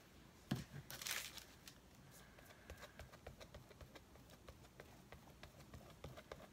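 A plastic glue bottle knocks once on the table about half a second in, and paper rustles briefly around a second in. After that come faint small taps and rustles as a glue brush is worked over torn magazine paper.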